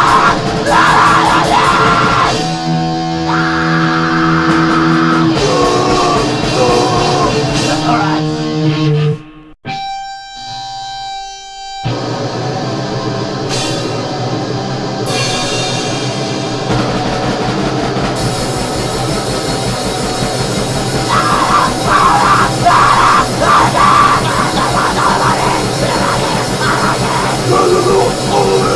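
Grindcore music with distorted guitar and drum kit. About nine and a half seconds in, the song stops. A short quieter passage with a few held tones follows, and the next song starts about two seconds later.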